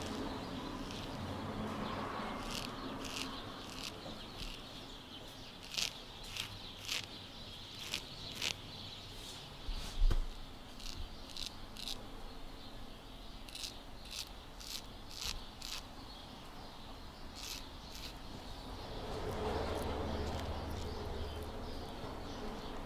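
Straight razor scraping through lathered beard stubble in a run of short, crisp, irregular strokes, with a single thump about halfway through.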